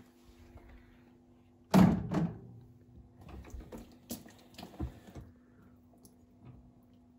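A Bosch dishwasher's door shut with one loud thunk about two seconds in, followed by a few lighter clicks and knocks, over a faint steady hum.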